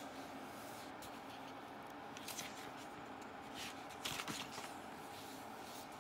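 Glossy magazine pages being turned and handled by hand: a few short, soft paper rustles.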